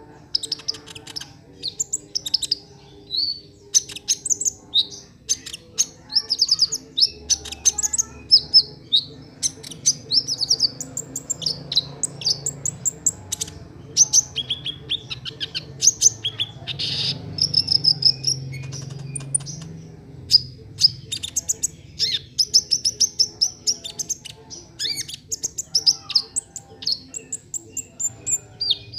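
Kolibri ninja sunbird singing continuously: a fast, varied stream of short high chirps, twitters and trills with hardly a pause.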